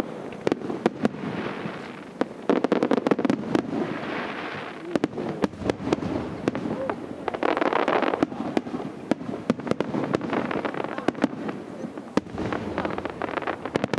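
Fireworks display: an irregular, rapid string of sharp bangs and pops, with swells of dense crackling about three seconds in, about eight seconds in and near the end.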